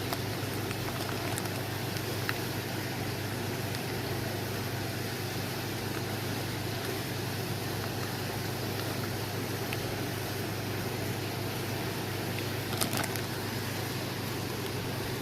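Steady low hum with a constant hiss and bubbling from aquarium air pumps and filters, with one brief knock near the end.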